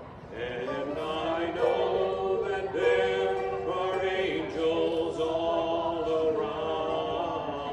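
Several voices singing a slow worship song in long, held notes that slide from one note to the next.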